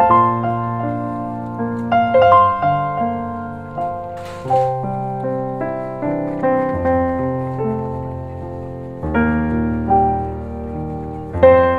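Piano music: single notes over chords that change every couple of seconds.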